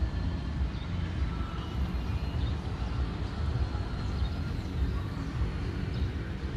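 Low, uneven outdoor rumble, with a few faint high chirps.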